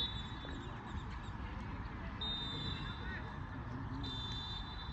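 Two blasts of a referee's whistle, one a little over two seconds in and a longer one about four seconds in, over faint background chatter of players and spectators.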